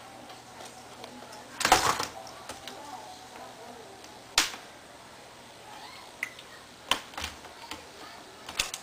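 Hands working on a laptop's plastic case and parts: a short rattle of clicks about two seconds in, the loudest sound here, then single sharp clicks and taps every second or two.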